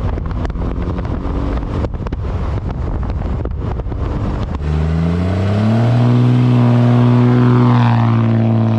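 5.9-litre inline-six 12-valve Cummins turbodiesel of a 1996 Dodge Ram 2500 driving, buried under heavy wind noise on an outside mirror-mounted camera. About halfway through, heard from inside the cab, the engine note climbs under acceleration and then holds a steady drone.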